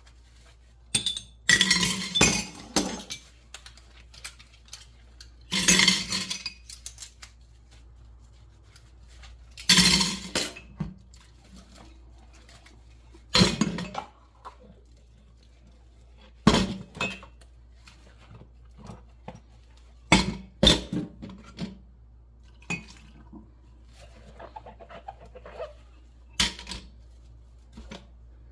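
Dishes, pots and cutlery clattering and clinking as they are handled by hand at the kitchen sink, in scattered bursts every few seconds.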